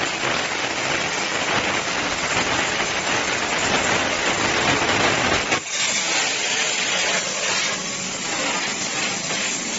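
CNC plasma cutting torch cutting steel plate: a steady, loud hiss. About halfway through the sound breaks off for an instant and carries on with much less low rumble.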